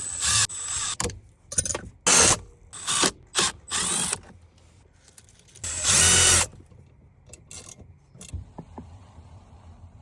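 Power drill run in several short bursts, then one longer, louder run with a steady whine about six seconds in, followed by a few light clicks.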